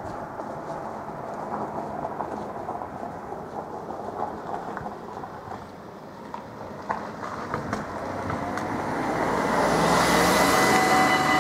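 Steady outdoor background noise with scattered small clicks, then a rushing noise that swells over the last few seconds. Near the end, the level crossing's warning bell starts up with a steady electronic ringing tone as the barrier sequence begins.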